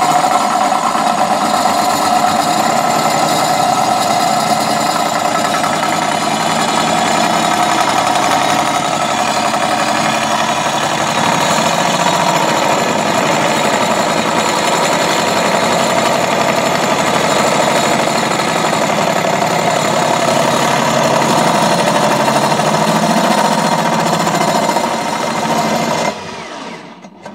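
Electric drill driving a hole saw through a metal tube in a homemade tube notcher: a loud, steady motor whine mixed with the saw teeth grinding into the metal, dropping off near the end as the cut finishes.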